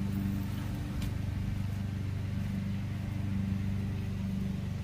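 Steady low motor hum, even in pitch and level, with a faint click about a second in.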